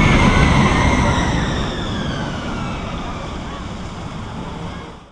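Roller coaster train rumbling past along its track after the drop, with high wailing tones over it that slide lower as the whole sound fades away. It cuts off abruptly at the end.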